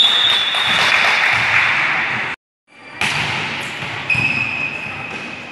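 Volleyball being played in a large echoing gym: sharp hits of the ball, one at the start and another about four seconds in, over the steady reverberant noise of players on the court. The sound cuts out completely for a moment a little before halfway.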